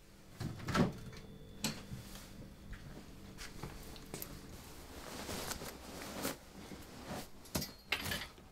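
Household knocks and clunks of doors and cupboards being opened and shut, about a dozen separate hits, the loudest about a second in.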